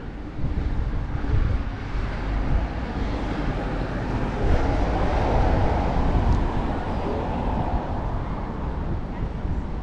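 Seafront ambience dominated by wind buffeting the microphone, with road traffic: a vehicle passing on the seafront road swells to a peak about halfway through and then fades.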